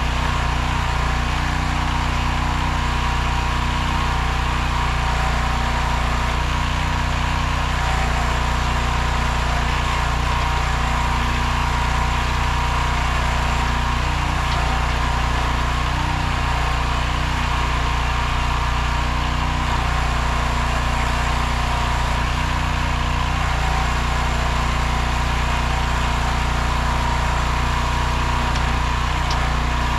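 Engine of a 15 hp towable backhoe running steadily at a constant speed.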